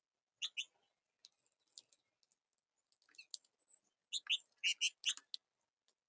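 Small birds at a feeding table making short, sharp, high clicks and chips, often in quick pairs, scattered at first and coming thick and fast from about four seconds in.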